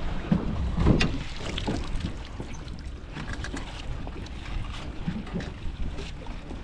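Wet rope of a lobster hoop net being hauled hand over hand up from the sea, water dripping and splashing off it, over a steady low rumble of wind on the microphone. A knock about a second in is the loudest sound.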